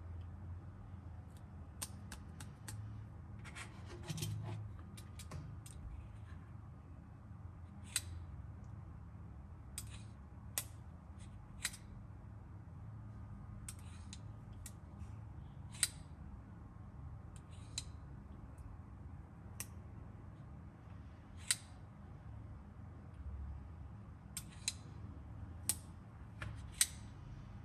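Sharp clicks at irregular intervals from a handheld digital thickness gauge, its spring-loaded foot snapping shut on a thin UV DTF transfer sticker as the lever is worked, with a patch of handling rustle a few seconds in.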